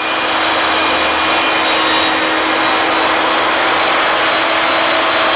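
Benchtop table saw running steadily with a constant whine while cutting a shallow dado groove along a wooden 2x4 door-frame piece.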